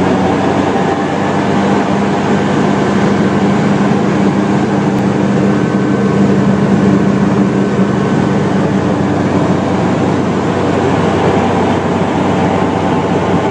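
Hovercraft engine and propeller running steadily, a loud even drone with a constant low hum.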